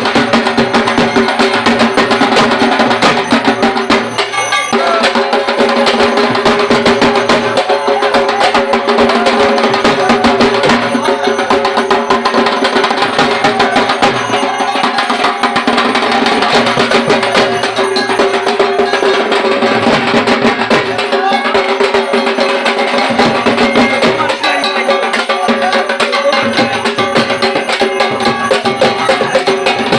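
Dhak, the large Bengali barrel drum, beaten in a fast, dense, unbroken rhythm with sharp stick strokes over a steady ringing tone.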